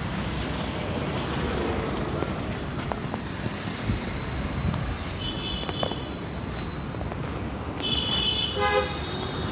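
Street traffic noise with vehicle horns sounding: a short beep about five seconds in and a louder honk near the end.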